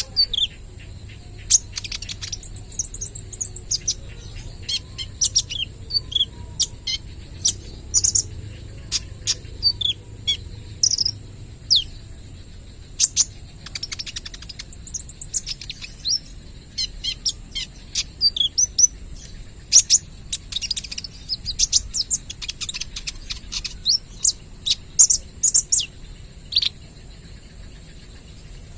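A young male sunbird, the kolibri ninja, singing persistently in a fast string of sharp, high-pitched chirps and short rapid bursts, the shrill 'tembakan' phrases that keepers play to stir other birds into song.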